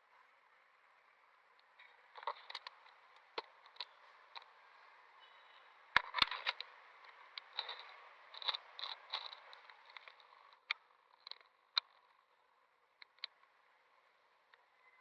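Faint rustling and scraping with many short clicks and crackles over a steady hiss. They bunch in the middle, with two sharp clicks about six seconds in the loudest, and thin out near the end.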